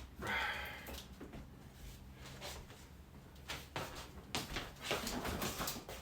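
Food containers and packages being handled and moved about in a refrigerator: a rustle in the first second, then a run of knocks and clatters in the last couple of seconds.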